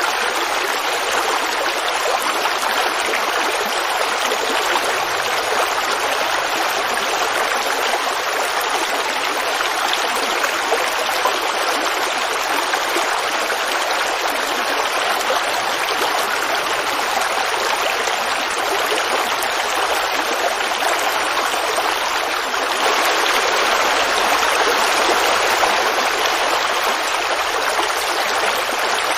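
Creek water running and babbling in a steady, even rush with no breaks. It gets a little louder about three-quarters of the way through.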